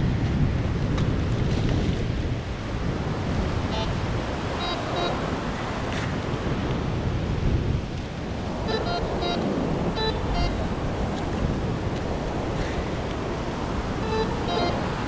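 Surf washing up the beach with wind on the microphone, and clusters of short electronic beeps from a White's MX7 metal detector: about four seconds in, again around nine to ten seconds, and near the end, as the coil is swept over the hole being dug.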